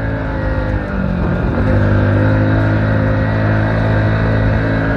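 Hero HF Deluxe motorcycle's small single-cylinder four-stroke engine running under load as the bike rides through loose sand. The engine note dips and shifts about a second in, then holds steady and a little louder.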